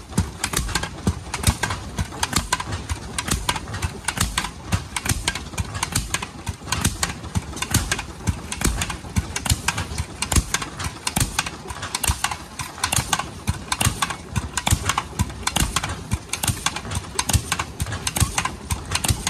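Vintage engine-driven earth rammer (tamper) running and pounding the ground, a rapid, fairly even string of sharp bangs several times a second.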